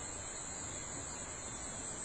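A steady, high-pitched chorus of insects calling without a break.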